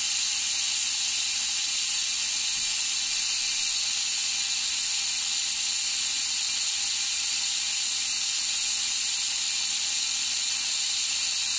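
Tamiya Mini 4WD car on an AR chassis, its small electric motor and gear drive running at full speed during break-in: a steady, high-pitched whir.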